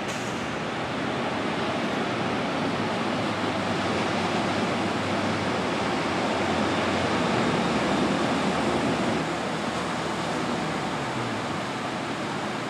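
Small ocean surf breaking and washing onto a sandy beach: a steady rushing hiss that swells over several seconds and eases off about nine seconds in.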